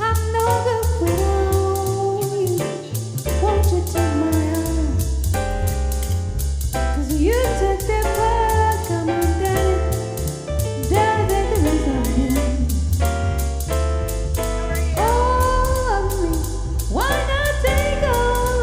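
Music: a song with a singing voice over strong bass and a steady drum beat.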